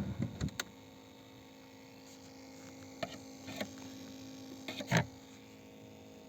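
Faint steady electrical hum from under a car's dashboard with the ventilation fan off, broken by a few short sharp clicks, the loudest about five seconds in.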